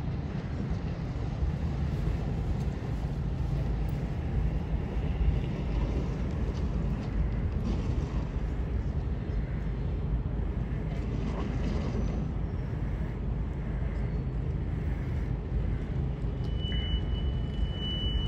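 Low, steady rumble of the ferry Mont St Michel's engines as the ship gets under way, blurred by wind on the microphone. Near the end a thin, steady high tone starts and holds.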